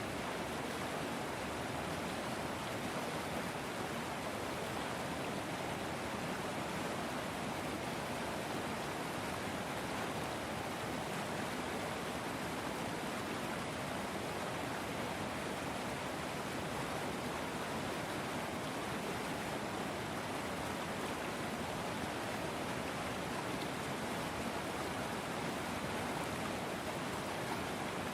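A river flowing, a steady even rush of running water.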